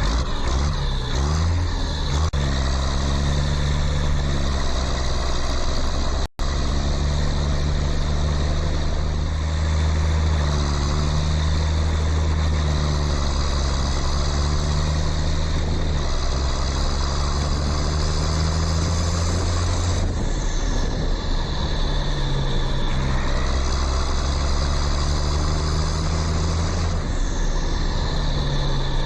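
A vehicle engine running steadily with slow shifts in pitch, cutting out for an instant about six seconds in.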